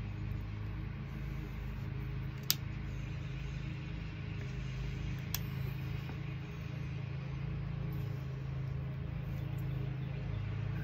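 Steady low hum of a motor running in the background, with two sharp clicks, one about two and a half seconds in and another about three seconds later.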